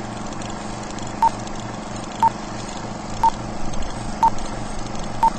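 Film-leader countdown sound effect: five short, high beeps, one each second, over a steady running whir and crackle of an old film projector.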